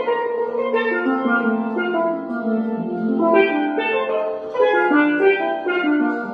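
A pair of steel pans played with sticks: a slow melody of several notes at a time, held notes sustained with rapid rolls.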